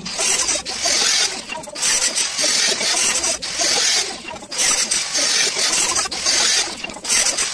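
Marker pen scratching cutting lines onto steel angle iron: repeated scratchy strokes, each about a second long, with short breaks between them.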